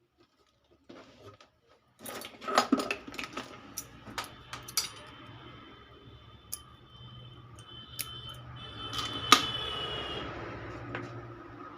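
Sharp clinks and knocks of small metal tools and parts being handled, thickest about two to five seconds in, over a steady low hum.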